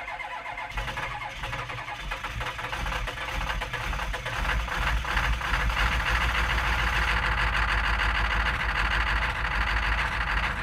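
An engine running, getting louder over the first half and then holding steady, with a rough, fast pulse throughout.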